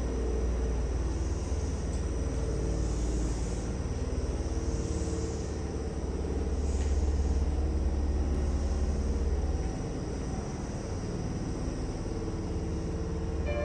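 Steady low rumble and hum inside an electric commuter train standing at a station platform, the idling train's running equipment heard through the car; the deepest part of the rumble eases about ten seconds in.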